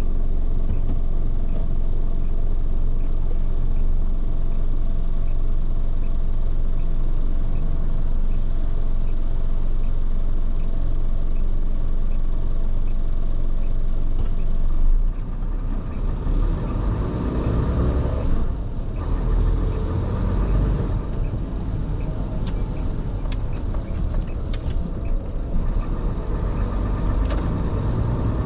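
Heavy truck running on the expressway: steady engine and road noise. About halfway through the sound drops a little and turns rougher and more uneven in the low end.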